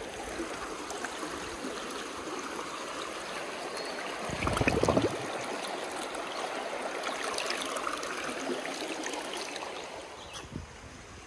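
Shallow creek water rushing steadily over rocks close to the microphone. About four seconds in there is a louder splash and gurgle as a water bottle is plunged into the current to fill it.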